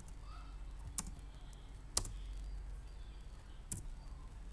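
Computer keyboard keys clicking a few times, single sharp keystrokes about a second apart, over a low steady hum.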